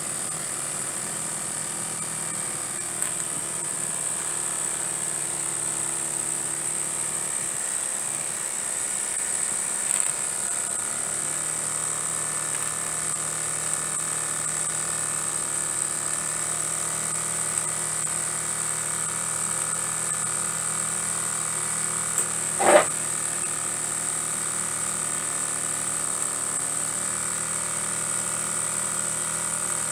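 Small model horizontal mill steam engines running steadily, a continuous mechanical whir over a steady high hiss. One sharp knock about three-quarters of the way through.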